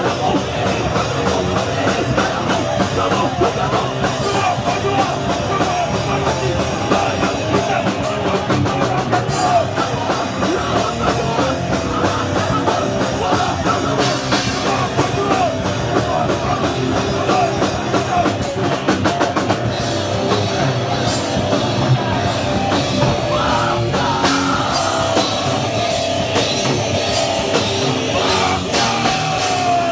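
Hardcore band playing live: distorted rock instruments over a full drum kit, loud and unbroken.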